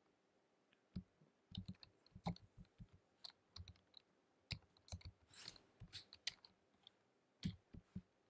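Faint computer keyboard typing: short key clicks in irregular runs, with a brief breathy hiss about halfway through.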